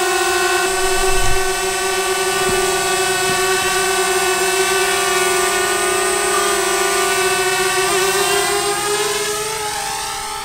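Small quadcopter drone's propellers whining steadily, with a brief low thump about a second in. Near the end the whine shifts in pitch and fades as the drone flies off.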